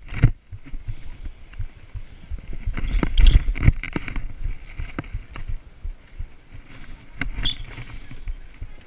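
BMX bike riding on a concrete skatepark surface: uneven tyre rumble with knocks and rattles from the bike. The loudest clatter comes about three seconds in, with two sharp knocks near seven and a half seconds.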